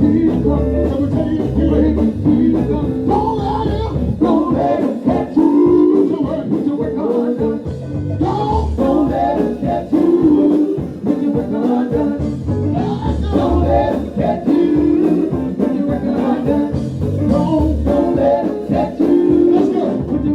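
Gospel group singing with band accompaniment including guitar, held sung notes over a steady beat.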